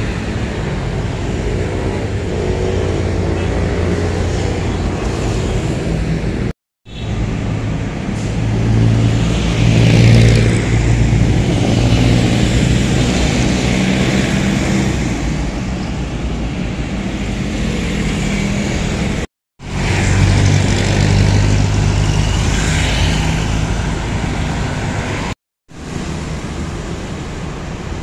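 Road traffic: vehicle engines and tyres running past on a city road, swelling louder about a third of the way in. The sound is split into several takes by three short cuts to silence.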